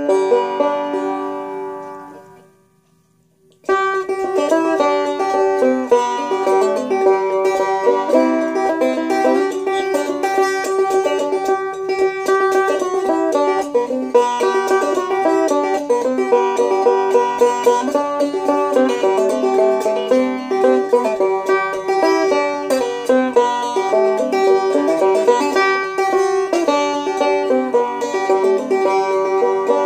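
Homemade cigar box banjo, built from a cigar box, a small salad bowl and a heat-shrunk plastic beer bottle, played clawhammer style. A single chord rings and fades away, then about four seconds in a steady clawhammer tune starts, with a drone string ringing under the melody notes.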